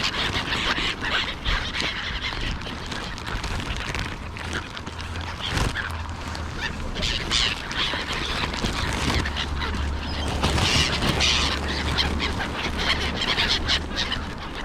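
A flock of gulls calling over and over, many birds at once, with crows likely among them, over a low steady rumble.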